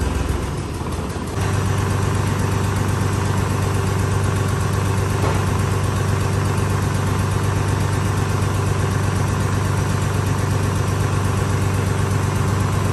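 A machine motor running at a steady low hum that comes in abruptly about a second and a half in, then holds unchanged.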